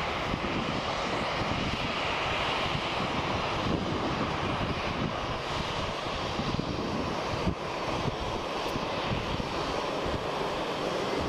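Airbus A320 jet engines at taxi thrust, a steady rushing noise as the airliner rolls past along the taxiway.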